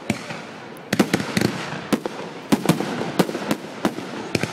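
Aerial fireworks display: many sharp bangs of bursting shells in quick, irregular succession over a steady crackle.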